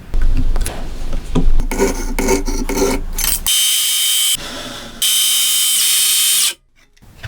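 Hand tool work on wood, with irregular knocking and scraping, then two short spells of a circular saw cutting wood with a high whine. Each cut starts and stops abruptly.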